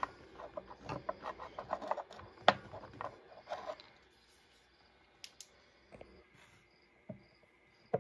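Quick small clicks and taps, about three or four a second for roughly four seconds, then a few scattered single clicks: handling of a carbon fibre knife handle scale.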